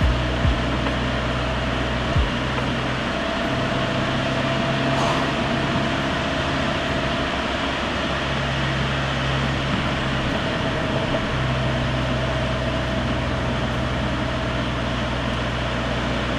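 Audi A4 B9's 2.0 TFSI turbocharged four-cylinder engine running at a steady cruise under a constant wash of tyre and road noise. There are a few short knocks in the first couple of seconds, like the car going over bumps.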